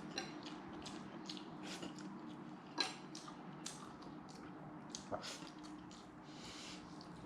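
A person chewing roast chicken, with soft, wet mouth smacks coming again and again and a couple of sharper clicks.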